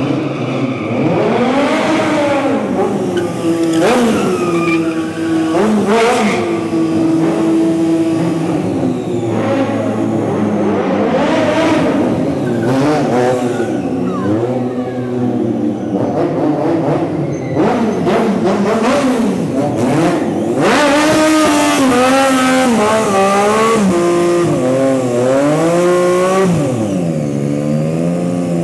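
Sportbike engine revved hard again and again, its pitch climbing and falling, with tyre squeal during stunt riding. Near the end the rear tyre spins in a smoking burnout.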